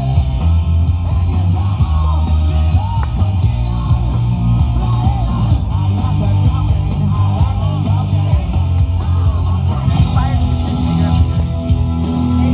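Rock music with guitar and singing over a heavy, steady bass.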